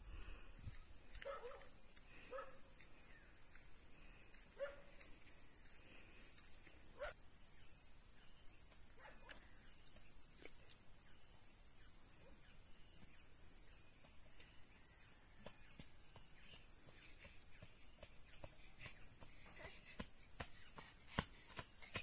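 Insects give a steady high-pitched drone throughout. A dog barks about five times in the first several seconds. Near the end come footsteps on a dirt path, drawing closer.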